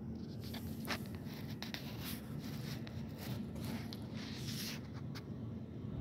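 Intermittent scratchy rustling with a few light clicks, from about half a second in until near the end, over a steady low hum.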